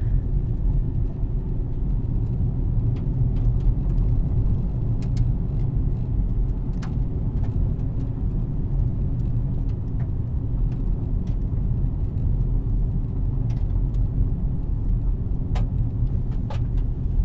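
Steady low rumble of a car heard from inside the cabin, with a few faint clicks scattered through it.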